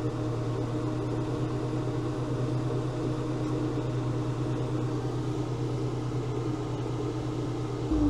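Engine of the Veter 6x6 all-terrain vehicle running at a steady speed, a constant hum with a fixed engine note under it; right at the end it gets louder and the note shifts.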